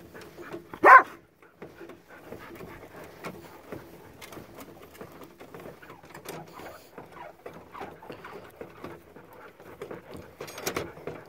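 A dog barks once, about a second in. After that come faint, irregular light clicks and rattles.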